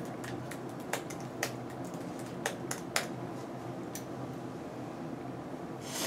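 A handful of sharp, irregular clicks from operating a computer, over a steady low room hum.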